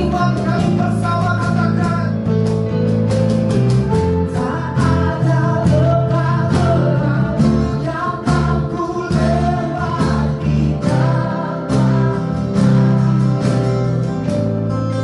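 Worship song: a voice singing over a band with guitar, bass and a regular drum beat.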